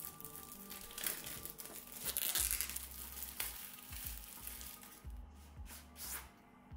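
Clear plastic wrap crinkling and tearing as it is peeled off a product box and crumpled in the hand, loudest in the first half and dying down after about four seconds.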